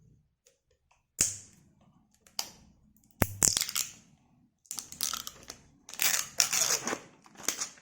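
Plastic packaging crinkling and rustling as it is handled and unwrapped: sharp crackles about one second and three seconds in, then repeated bursts of crinkling.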